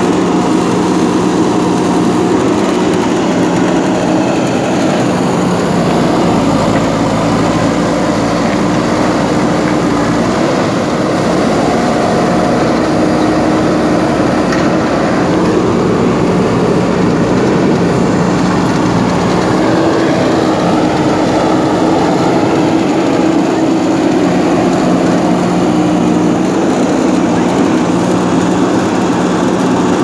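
JCB 3DX backhoe loader's diesel engine running steadily under load while the backhoe digs, its pitch shifting slightly as the hydraulics work.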